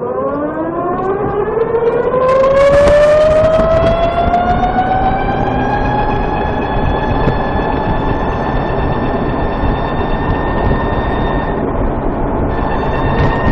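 VX1 motorcycle riding under load at low speed: a whine with many overtones rises steadily in pitch for about six seconds as the bike accelerates, then holds steady, breaking briefly near the end. A rough low rumble runs beneath it. The sound is what the owner calls a transmission chirp, worst at lower speeds under load.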